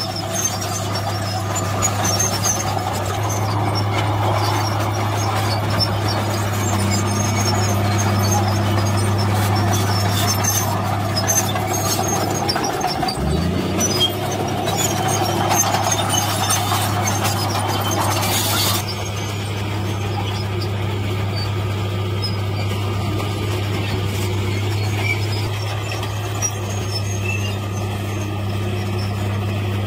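Komatsu D53P crawler dozer's diesel engine running steadily, with squeaks and clanks from its steel tracks; the engine note dips and recovers once about 13 s in. About 19 s in the sound changes abruptly to a dump truck's engine running steadily.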